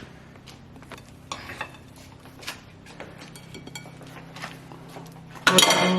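Scattered light clinks and taps of cutlery against dishes, with a faint steady hum beneath. A voice comes in loudly near the end.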